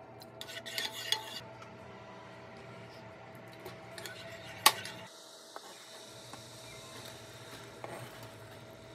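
Cooking sounds from a small metal saucepan: clinks and taps as a wooden spoon stirs a simmering soy-based sauce, with one sharp tap about halfway. Near the end come a few soft taps as sliced onion is scraped off a plastic cutting board into the pan. A faint steady hum runs underneath.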